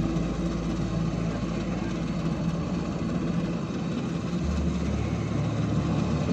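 Kubota combine harvester's diesel engine running steadily while cutting rice, a continuous low drone whose deepest tone shifts slightly about four seconds in.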